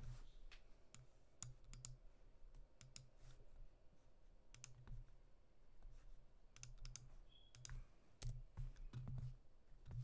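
Faint, irregular clicks from a computer mouse and keyboard, some coming in quick pairs.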